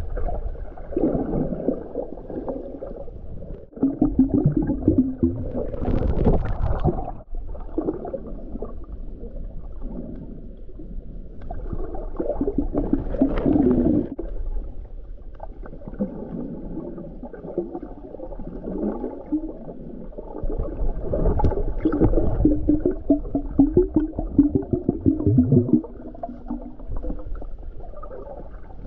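Muffled underwater sound from a camera below the surface: water moving and gurgling, with swelling, wavering low hums.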